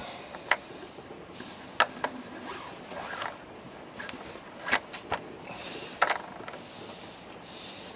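Hands working paracord around a small fixed-blade knife's skeletonized handle: rustling, scraping cord handling broken by about seven sharp clicks and taps, the loudest a little past halfway.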